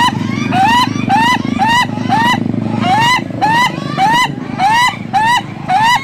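Ayam ketawa (laughing rooster) giving its long laughing crow: an unbroken run of short rising notes, about three a second. A low steady rumble sits underneath and fades about halfway through.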